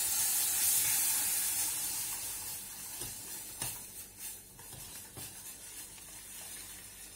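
Water poured into hot oil-toasted flour and semolina in a stainless steel pot sizzles loudly and dies away over a few seconds as the liquid cools the pan. A few light clinks of a spoon against the pot come midway.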